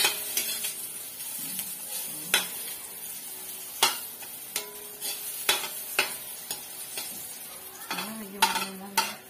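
Potato and banana chunks frying in oil in a metal wok, with a steady sizzle. A metal spatula stirs them, making sharp scrapes and taps against the wok at irregular moments.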